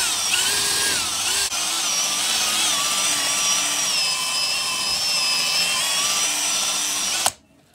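Electric drill spinning a foam polishing ball against a cured resin finish on a wooden board, buffing in polish; the motor whine drifts up and down in pitch as the speed changes. It stops suddenly near the end.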